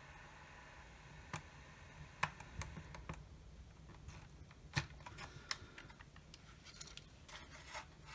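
Scattered light clicks and taps from hands handling a small plastic LED projector and turning it over, about half a dozen sharp ticks a second or so apart.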